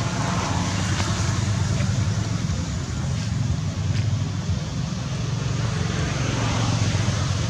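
Steady low rumble with a hiss above it, outdoor background noise that holds without a break.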